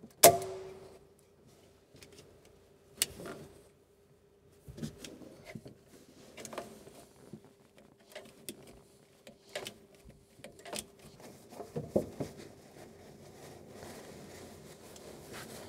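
Scattered clicks, knocks and rustles of hands and a tool working a spin-on oil filter loose from the engine, among paper towel; a sharp click just after the start is the loudest, with another about three seconds in. A faint steady hum underneath.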